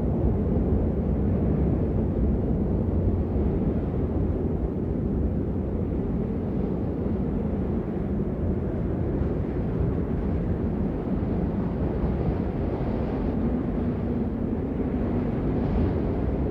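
Steady rain, a dense, even rushing noise heavy in the low end, without distinct individual drops.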